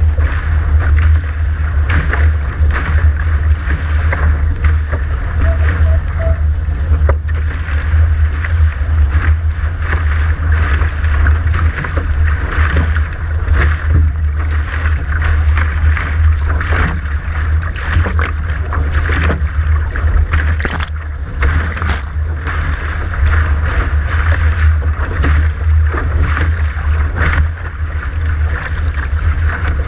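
Water rushing and splashing along a Dart catamaran's hull as it sails at speed, with a constant low wind rumble on the microphone. Sharp spray slaps break through now and then, two of them about twenty-one and twenty-two seconds in.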